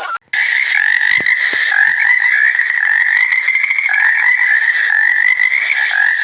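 A dense, steady chorus of many small animals calling at once, overlapping calls massed in one shrill band. It starts abruptly a moment in after a brief gap.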